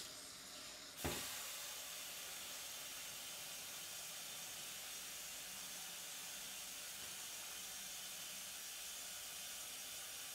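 A steady, even hiss that starts with a click about a second in and holds unchanged.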